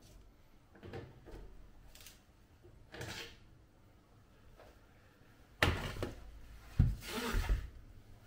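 Handling noises: faint scrapes about one and three seconds in, then a sharp knock, a heavy thump and a short rustle close together in the last three seconds, the loudest part.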